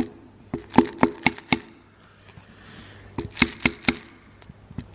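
Two quick runs of sharp taps, about four a second and four or five taps each, the first about a second in and the second past the middle: a hammer tapping parts into place while an Audi 2.5 TFSI five-cylinder engine is assembled.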